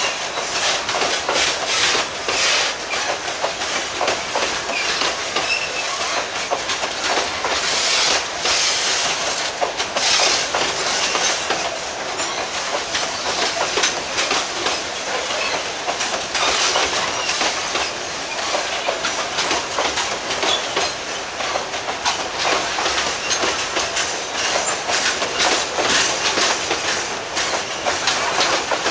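Loaded freight wagons rolling past, their steel wheels clacking over the rail joints in a steady run of clicks and rumble.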